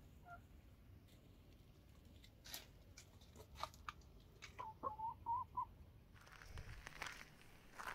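Chickens in a pen: a short run of soft, quick clucks about five seconds in, with a few light clicks before it and a crunching on gravel from about six seconds in. Faint overall.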